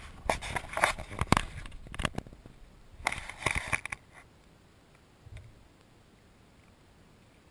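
Handling noise from a camera being moved and set on a kayak's fabric spray deck: irregular knocks, clicks and rustling that stop about four seconds in.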